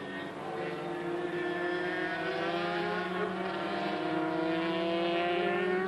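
Racing sidecar outfit's two-stroke engine at full throttle, heard from a helmet camera on board, its note climbing slowly and steadily as the outfit accelerates along the straight.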